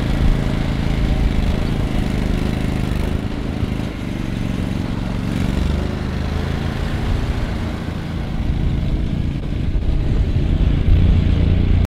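Argo amphibious ATV's engine running steadily as it drives over rough ground, the engine note shifting a few times and getting louder in the last couple of seconds.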